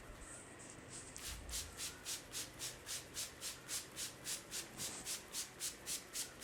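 Hands rubbing briskly back and forth over hair and scalp in a head massage. Short scratchy strokes come in a steady rhythm of about four a second, starting about a second in.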